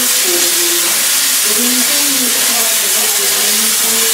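Steam locomotive Er787-46, a Soviet Er-class 0-10-0, venting steam in a loud, steady hiss.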